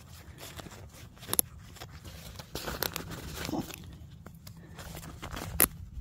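Small clicks and rustles of fingers working a zipper slider off the end of a tent rain fly's zipper tape. There is a sharper click about a second and a half in, and the loudest one comes near the end.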